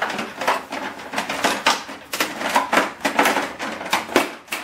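Metal and plastic parts of a printer being handled and pried apart: irregular clattering, clicks and knocks.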